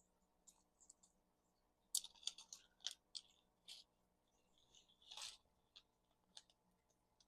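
Faint clicks and taps of small plastic and metal parts of a micro RC crawler axle being handled and fitted together, bunched about two to four seconds in, with a short scrape a little after five seconds.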